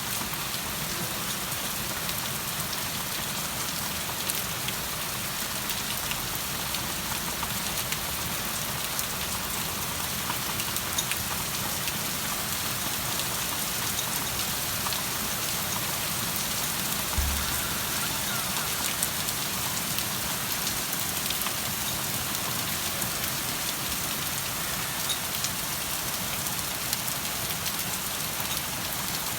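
Steady rain falling on surfaces, a dense even patter with scattered individual drops ticking, and one brief low thump about 17 seconds in.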